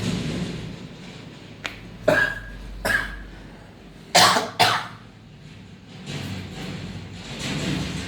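A man coughing in short harsh bursts: two coughs about two and three seconds in, then two louder coughs close together just after four seconds.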